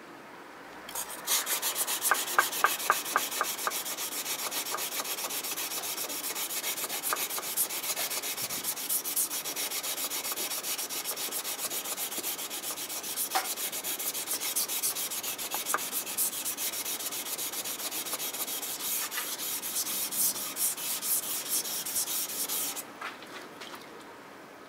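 Steel blade of a Tosa-style multipurpose kitchen knife being rubbed back and forth on a wet whetstone: a fast, even rasping run of strokes that starts about a second in and stops shortly before the end.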